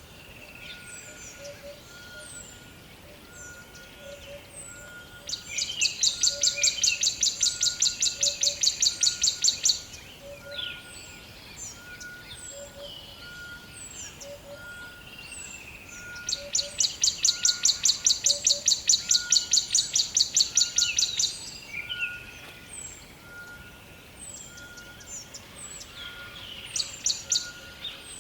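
Rainforest ambience of layered bird and animal calls. A loud, rapid, high-pitched pulsed trill comes in twice, each time for about four seconds. Short high chirps and a steady short note repeating about once a second run underneath.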